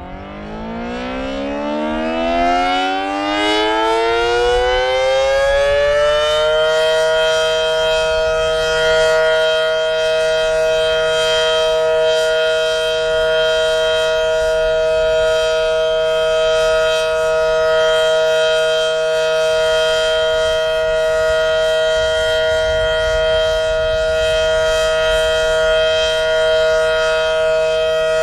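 Single-phase Federal Signal SD-10 warning siren winding up: its pitch rises from low and levels off about six and a half seconds in, then holds a steady tone for the alert signal.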